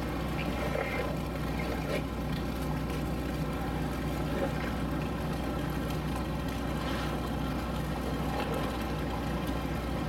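A steady low mechanical hum that does not change, with a few faint ticks over it.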